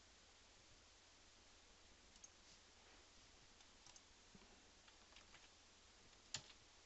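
Near silence, broken by a few faint, scattered computer mouse clicks, the loudest about six seconds in.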